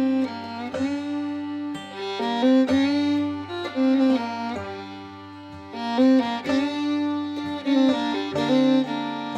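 Background music: a fiddle-like string melody over a held low bass note.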